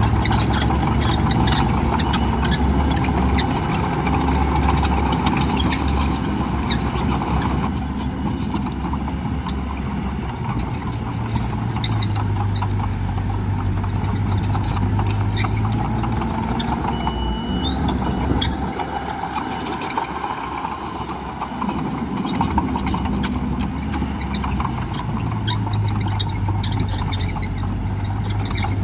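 Heavy diesel earthmoving machinery running: a dump truck or bulldozer engine with a deep, steady note that rises and falls as the machines work, and some clanking on top.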